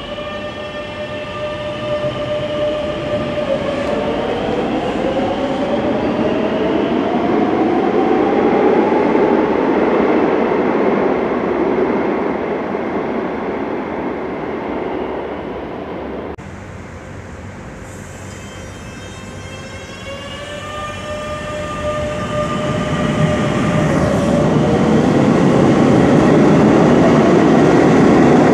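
Madrid Metro electric train pulling out of an underground station: a steady electric whine turns into motor tones rising in pitch as it speeds up, and the wheel rumble grows louder. After a sudden cut about halfway through, a second departure follows the same pattern, a steady whine then a rising one, and it ends loudest as the train runs into the tunnel.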